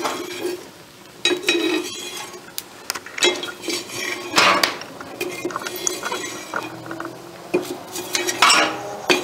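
Steel fire poker scraping and clinking against the metal forge pan as it rakes apart a burning bed of coked feed corn. The strokes are irregular, with the loudest scrapes about four and a half seconds in and near the end.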